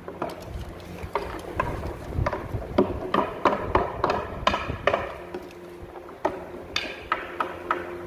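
Irregular clicks and knocks, several ringing briefly, as a steel tape measure's blade is handled and laid against a wooden cabinet door, with a faint steady hum underneath.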